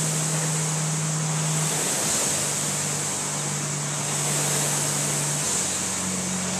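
Concept2 rowing machine's air-resistance flywheel whooshing continuously, swelling and easing with each stroke as the rower pulls at a steady pace.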